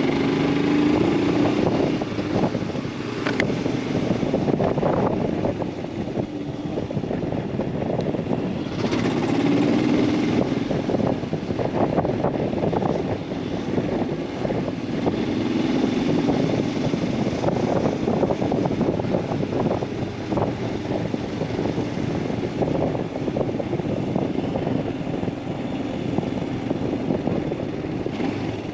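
Royal Enfield Himalayan 411's single-cylinder engine running while riding. Its note swells louder several times as the throttle is worked, over steady road noise.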